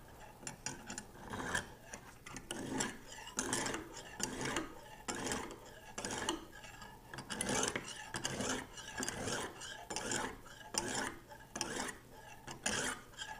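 Oiled extra-coarse Lansky hone rubbing back and forth along a steel knife edge in short strokes, about one or two a second, grinding material off a badly pitted tip.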